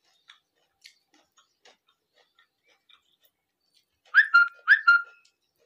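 A small dog barking off-screen: two quick double yaps close together about four seconds in. Before them, only faint ticks of fingers mixing rice on the plate.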